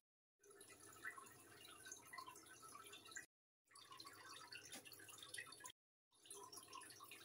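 Near silence: faint room noise with scattered tiny ticks, cutting out completely for a moment three times.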